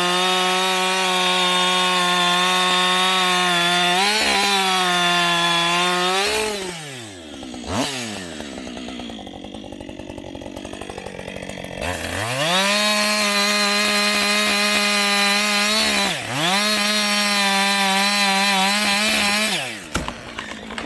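Two-stroke chainsaw cutting wood at full throttle, its engine note held high and steady for several seconds at a time. It drops back to idle about seven seconds in and revs up again for another long cut about twelve seconds in.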